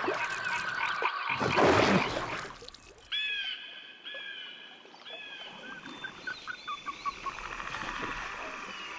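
Swamp sounds: a chorus of frogs, then a loud water splash about a second and a half in. Three repeated frog calls follow about a second apart, then a quick run of short chirps, with music coming in near the end.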